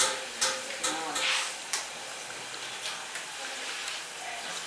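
Food sizzling steadily in a frying pan, with a few sharp clicks of a utensil against the pan in the first couple of seconds.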